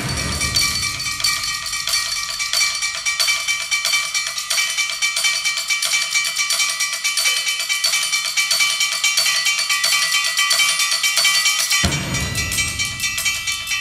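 Percussion quartet playing a fast, dense run of repeated strikes over steady high ringing pitches. Low strokes come in at the start and again about twelve seconds in.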